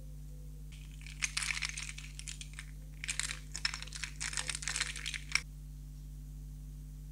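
Small hard plastic toy charms and keychain clips clicking and clattering against one another as they are scooped up and shuffled in the hands, in two spells of rapid clicks of about two seconds each.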